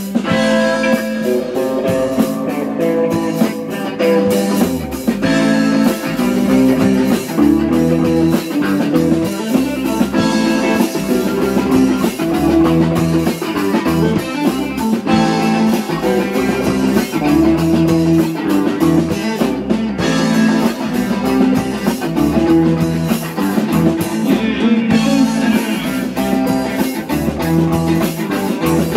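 Live rock band playing an instrumental passage: electric guitar, bass guitar and drum kit with cymbals, loud and continuous.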